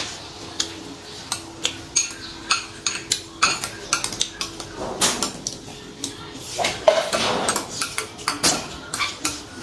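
Metal spoon clinking and scraping against a glass bowl while scooping rice: a long run of irregular light clinks, a few every second.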